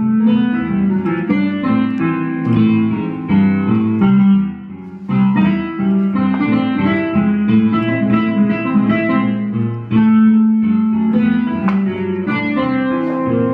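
Electronic keyboard being played: chords and a melody with crisp note attacks, with a short lull about four and a half seconds in. It plays in tune again after being reset, having been out of tune before.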